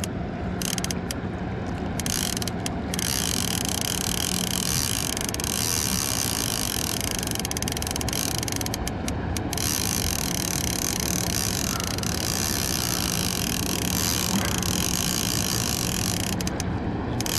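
A Yamaha 8 hp outboard motor running steadily, its low hum dropping out briefly about five seconds in. A dense ratcheting click runs over it throughout, the fishing reel's drag letting out line to a hooked sturgeon.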